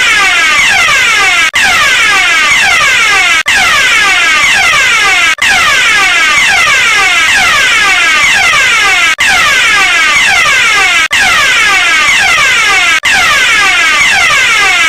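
Electronic fire alarm sounding continuously: a loud, harsh tone sweeping rapidly downward in pitch, over and over several times a second, with a brief break about every two seconds.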